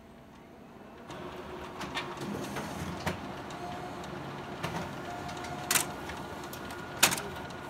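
Toshiba 4505AC copier printing a page. A steady mechanical whir starts about a second in, with sharp clicks about three, six and seven seconds in, the last the loudest.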